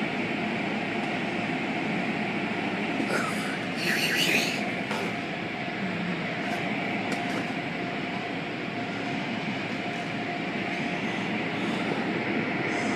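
Automatic car wash heard from inside the car: tall rotating brushes scrubbing against the body and glass while water sprays, a steady rushing wash with a faint steady whine underneath. A louder swish comes about four seconds in.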